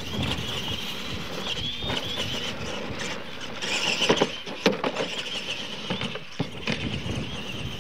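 Electric Clod-style RC monster trucks racing on a dirt track: a high motor and gear whine that wavers with the throttle, over tyre rumble. A few sharp knocks come about four to five seconds in, and another near the end, as a truck hits and lands off the ramps.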